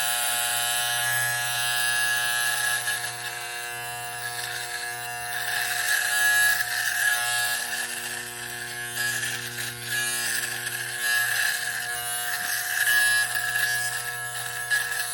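Andis T-Outliner hair trimmer running with a steady electric buzz, its level wavering as the freshly set blade is run over arm hair for a test cut.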